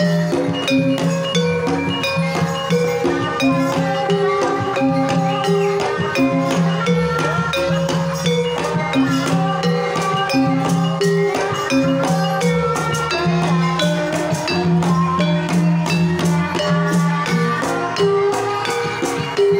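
Banyumasan gamelan playing a tayub piece: kendang hand drums keep a busy beat under ringing notes from bronze kettle gongs and keyed metallophones, with low gong tones underneath and a sinden singing over the ensemble through a microphone.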